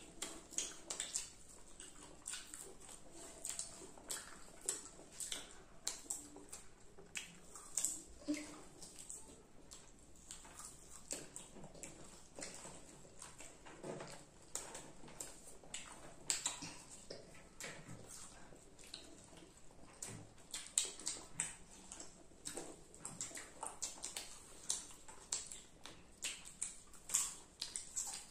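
Several children chewing popcorn and sauce-dipped French fries: an irregular run of crunches and wet lip-smacking clicks, several a second.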